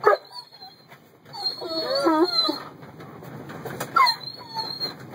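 A short knock, then a voice making a wavering pitched sound for about a second, with a steady high-pitched buzz throughout.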